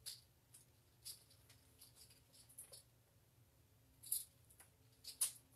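Faint, scattered light clicks and rustles of small objects being handled, with about a dozen sharp ticks at irregular intervals over a low room hum.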